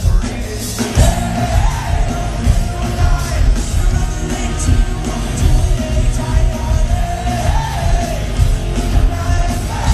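Punk rock band playing live, with distorted electric guitars, bass and drums under a sung vocal line of long held notes that rise and fall in pitch. Heard loud from among the audience.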